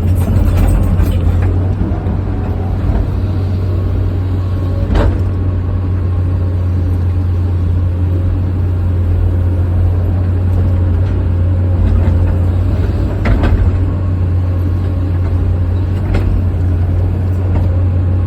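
Excavator engine running steadily with a heavy low drone, with a few sharp knocks about five seconds in, near the thirteen-second mark and again a little later.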